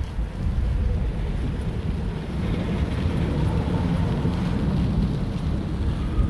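Bicycle tyres rolling over a gravel towpath, a steady crunching rumble, with wind buffeting the microphone.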